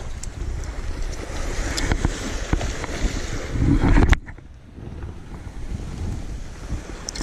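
Wind rushing over the microphone with sea noise beneath it, and a few small sharp clicks. The rush builds to its loudest as the rod is swung overhead in a cast about four seconds in, then cuts off suddenly and stays quieter.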